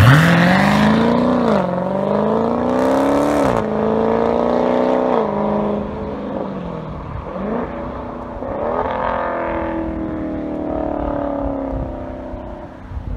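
Dodge Charger SRT 392's 6.4-litre HEMI V8 with the mufflers deleted, launching and accelerating away: a loud burst of revs, then the exhaust note climbing and dropping through several quick upshifts. The sound fades as the car pulls into the distance.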